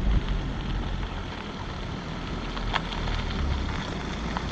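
A car driving in slowly at low speed: a low engine rumble under crackling tyre noise, with a thump at the start and a couple of sharp clicks.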